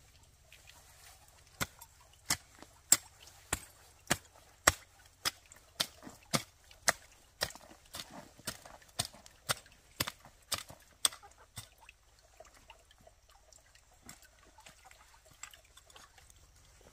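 A steady run of about eighteen sharp knocks, a little under two a second, starting about a second and a half in and stopping at about eleven seconds, followed by a few faint scattered clicks.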